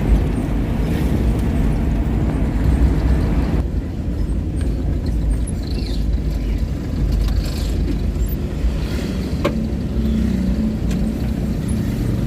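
Motor vehicle on the move: a steady low rumble of engine and road noise. The higher hiss drops away about four seconds in, leaving mostly the low rumble.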